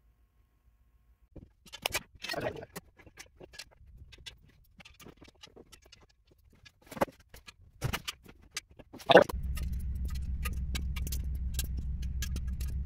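Ratchet clicking and metal tools clinking as exhaust header bolts are tightened down. A loud knock about nine seconds in, then a steady low hum sets in.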